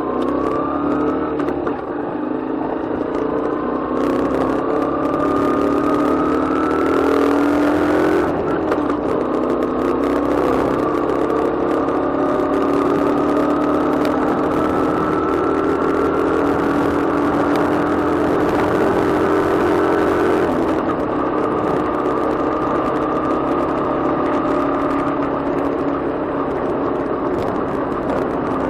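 Motorcycle engine running on the move, its pitch climbing slowly, then stepping down about 8 seconds in and again about 20 seconds in.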